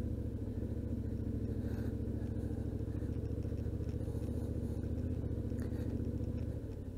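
Yamaha Ténéré 700's parallel-twin engine running at steady low revs while riding, easing off slightly near the end.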